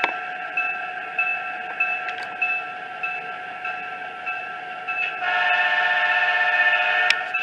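Model diesel locomotive's DCC sound decoder, played through a baffled Soundtraxx 2-watt speaker, ringing its bell steadily with a few light clicks. About five seconds in, it sounds a multi-note air horn blast that lasts about two seconds.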